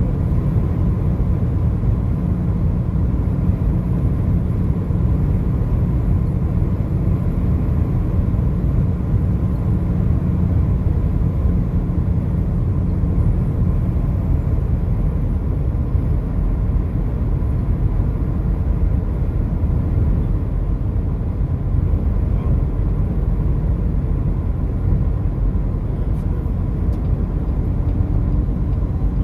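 Steady road and engine noise of a car driving on the interstate. The rumble is low and even, with a faint steady whine above it.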